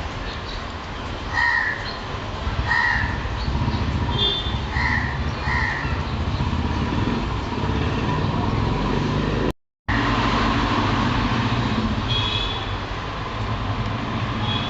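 Maruti Suzuki Alto 800's three-cylinder petrol engine running with an uneven low rumble: misfiring on cylinders 1 and 2. Crows caw several times in the background during the first half. The sound drops out completely for a moment about ten seconds in.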